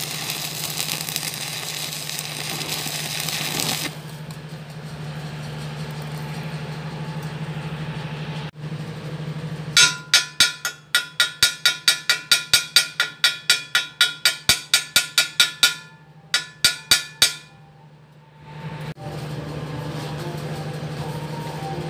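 Electric arc welding crackle for the first few seconds, then a quieter steady hum. About ten seconds in comes a fast run of some two dozen sharp, ringing metal strikes on the welded steel pipe, about four a second, with a few slower ones just after. Arc welding noise resumes near the end.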